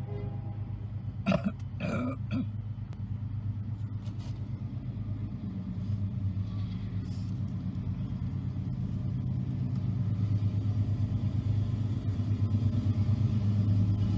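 Diesel locomotive engine rumbling with a fast, even pulse, growing steadily louder as it approaches. A couple of short, sharp sounds stand out about a second and a half in.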